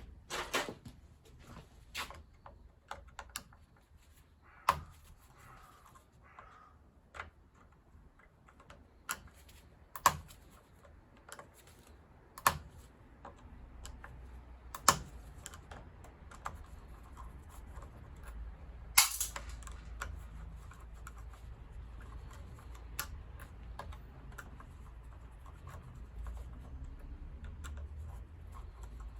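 Hand tools and small metal and plastic boiler parts clicking and clacking at irregular intervals as a boiler is taken apart, with one louder clack about two-thirds of the way through.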